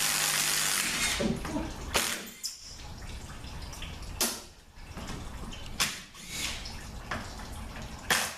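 Tool work on the bolts of a transmission oil pan: a loud hiss for about the first second, then four sharp metallic clicks or knocks, about two seconds apart.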